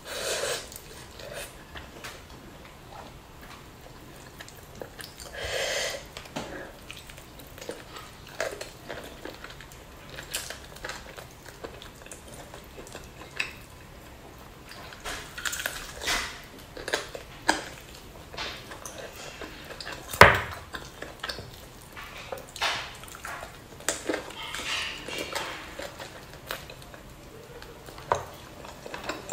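Close-up eating sounds of someone eating by hand: chewing, lip smacks and the tearing of spicy duck meat, with scattered small clicks and taps. One sharp click about twenty seconds in is the loudest sound.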